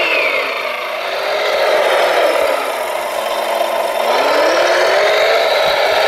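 Radio-controlled Volvo L250GS wheel loader model running, its motors and gears whining over gritty noise. The whine falls in pitch over the first couple of seconds, holds low, then rises again about four seconds in as the loader slows and speeds up.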